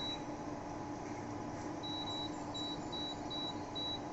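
Touch-control panel of a Power Saver Technology PIC 2.0 V2 induction cooker beeping with each button press as the power setting is stepped up to 600 W: one short high beep at the start, then five more in quick succession from about two seconds in. A steady low hum runs underneath.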